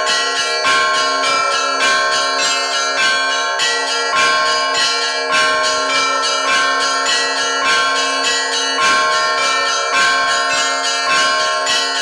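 Russian Orthodox church bell ringing: several small bronze belfry bells of different pitches struck by their clappers, pulled by hand on ropes, in a quick, steady rhythm of strikes over their lingering ring.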